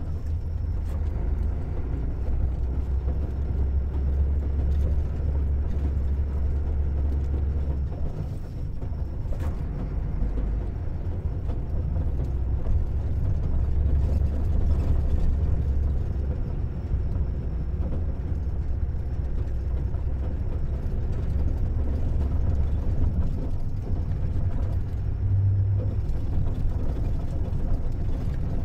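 Car driving: a steady low engine and road rumble with no let-up, and one faint click about nine seconds in.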